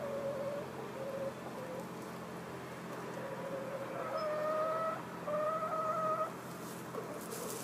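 Hens calling in a straw nest box: a few short notes, then two longer held calls, each about a second long, about four and five and a half seconds in.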